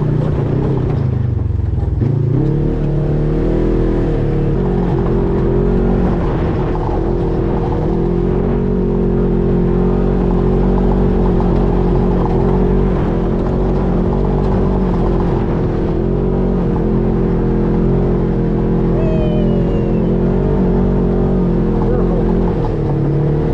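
Side-by-side UTV's engine running steadily under way, easing off about a second in and then picking back up.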